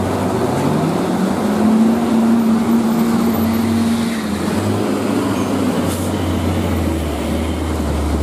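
Heavy diesel trucks climbing under load and passing close: a steady low engine rumble, with an engine note rising in pitch about a second in and holding steady for a few seconds, over the hiss of tyres on a rain-soaked road.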